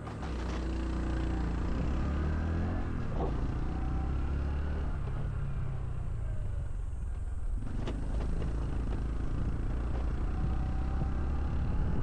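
Honda CT125 Hunter Cub's air-cooled single-cylinder four-stroke engine running steadily with a low rumble. There is a sharp click about eight seconds in.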